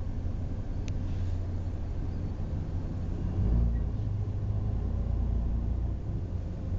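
Low, steady vehicle rumble heard from inside a car, from the idling car and the freight train passing, swelling about three and a half seconds in.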